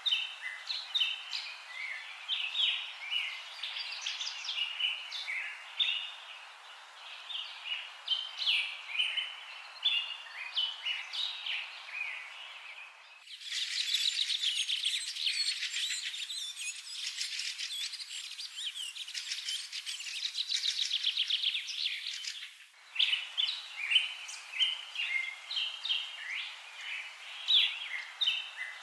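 Small birds chirping and twittering in quick, varied notes. In the middle the chirps give way for about ten seconds to a dense, rapid trilling chorus that starts and stops abruptly.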